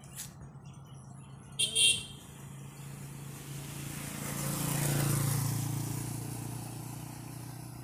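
A motorcycle approaches from behind and passes by, its engine hum and tyre noise swelling to loudest about five seconds in, then fading as it moves ahead. A short, sharp high-pitched sound comes just under two seconds in.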